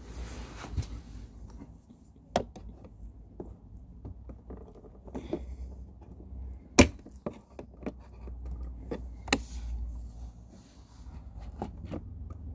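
Sharp plastic clicks and knocks as a tool and fingers work the clip of a BMW F30 glove box damper, over a low handling rumble. The loudest click comes about seven seconds in, with others about two and nine seconds in and many small ticks between.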